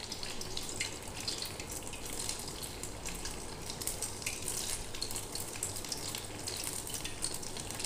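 Oil sizzling steadily with fine crackles around a pua of semolina-and-banana batter deep-frying in a kadhai.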